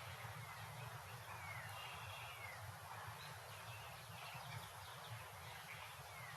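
Suburban street ambience: a steady low background hum of distant traffic and town noise, with birds calling now and then in short falling chirps.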